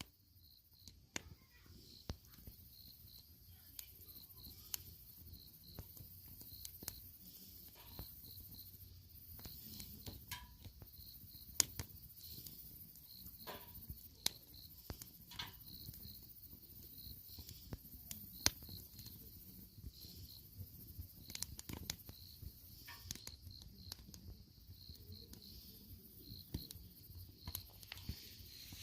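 Wood campfire crackling with scattered sharp pops, over crickets chirping in a steady, even pulse and a continuous high-pitched insect trill.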